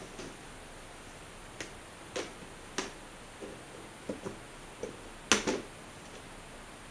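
Plastic pet carrier being handled: a scatter of light clicks and knocks, with the loudest double clack about five seconds in as its clear plastic lid is lifted open.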